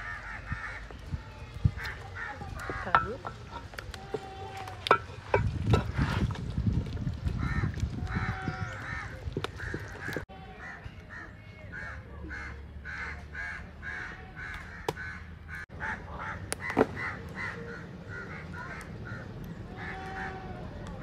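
Birds calling over and over in short, repeated calls, with scattered clicks and knocks of a wooden spoon stirring a metal cooking pot.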